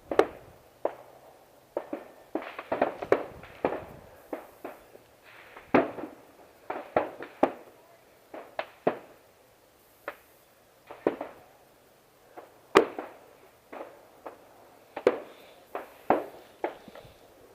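Irregular footsteps climbing a steep trail, sharp knocks and scuffs coming one to three a second, close to the microphone.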